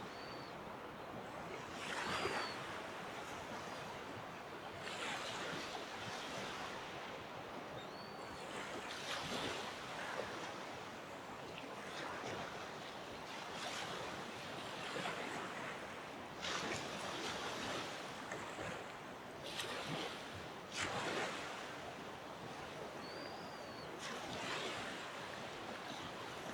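Small waves washing onto a beach: a steady surf hiss with a soft rush of breaking water every few seconds. A short high chirp cuts in four times.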